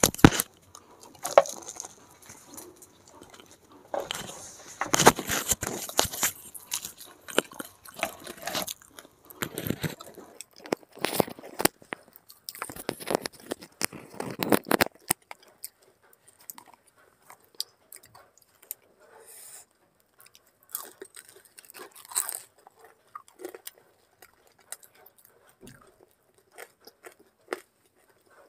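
Close-up biting and chewing of crispy fried samosas, with crunchy crackling. It is dense for the first half and turns sparser and quieter after about fifteen seconds.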